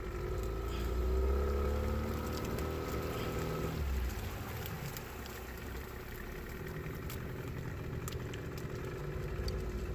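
Small fishing boat's engine running steadily at low speed, a little louder in the first few seconds and easing off about four seconds in, with a few light clicks over it.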